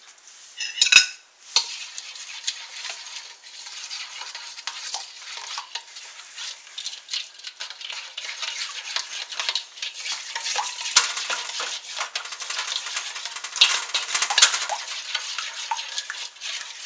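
A utensil stirring Sriracha-and-melted-butter sauce in a bowl, mixing in salt and garlic powder: a continuous scraping with many small ticks, after a short clatter about a second in.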